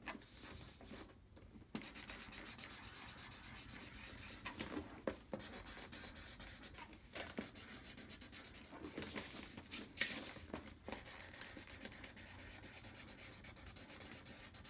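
Felt-tip marker rubbing on paper as a child colors in a drawing: a steady scratchy rubbing of short back-and-forth strokes, with a few louder strokes along the way.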